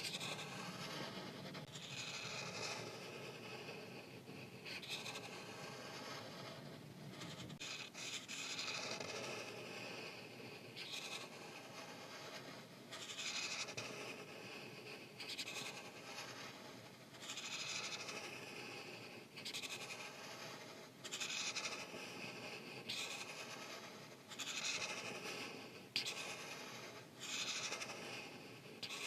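Art marker tips rubbing across paper in a run of repeated scratchy coloring strokes, each lasting about a second or two, with short pauses between.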